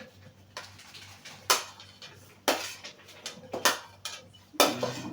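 Cut garlic being put into a bottle by hand in the kitchen: about five separate knocks and clatters of food and utensil against the container, roughly a second apart.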